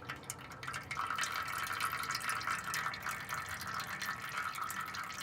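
Old engine oil trickling and dripping from the oil filter canister's drain plug into a tray, a steady patter that grows louder about a second in. The oil is dirty and watery.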